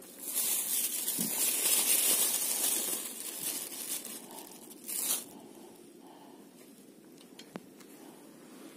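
Thin clear plastic bag crinkling and rustling as a hand rummages inside it. It is loudest over the first three seconds or so, with one more short rustle about five seconds in.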